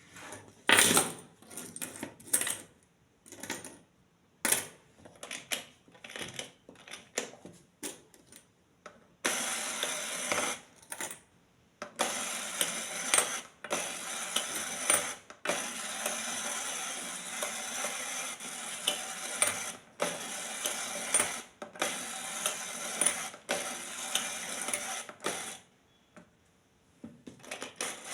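Toy packaging and small plastic parts being handled during an unboxing: a run of sharp clicks and taps, then a long stretch of rustling and crinkling from about nine seconds in.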